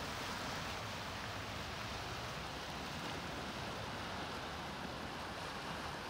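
Small waves washing over a rocky shore: a steady hiss of surf.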